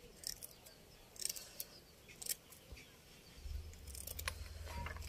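Kitchen scissors snipping through the fins of a large river vaala catfish: a series of sharp, separate snips and clicks. A low steady hum comes in about two-thirds of the way through.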